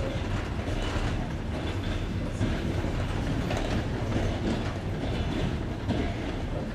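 Passenger train running over jointed rails, its carriage wheels clicking over the rail joints against a steady rumble, heard from aboard the train.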